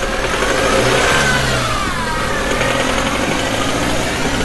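Motor vehicle engine running and revving, with a whine that rises and falls a second or two in.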